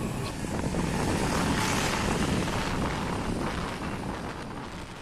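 Wind rushing over the microphone, together with engine and road noise from a motorcycle moving through city traffic. The sound fades gradually near the end.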